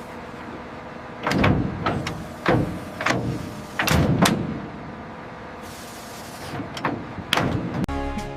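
A series of heavy thuds and clanks over a steady low hum, four of them evenly spaced early on. Music begins near the end.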